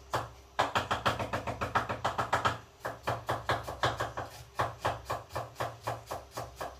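Knife chopping onion on a cutting board: quick, fairly even knocks, several a second, starting about half a second in and stopping just before the end.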